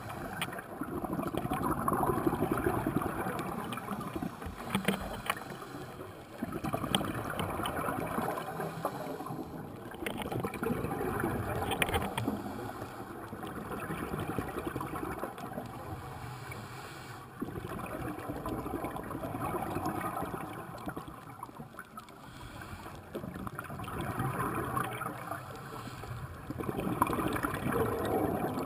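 Scuba regulator breathing heard underwater through a camera housing: a bubbling, rushing noise that swells and fades roughly every three to four seconds as exhaled air bubbles out, with a few faint clicks.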